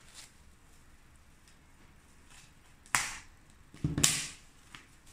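Plastic cling wrap being peeled off bread loaf pans, crinkling in two short bursts, the first about three seconds in and the second, a little louder, a second later.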